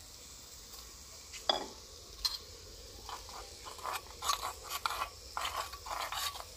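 Metal spoon stirring cornflour and water in a clay bowl, scraping and clinking against the sides. It starts with a couple of single clinks, then turns to quick repeated strokes over the second half.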